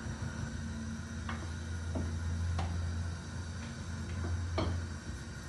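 A few faint light clicks and taps as hands scatter crumbled cheese filling over pastry sheets in a metal baking tray, over a steady low hum that stops near the end.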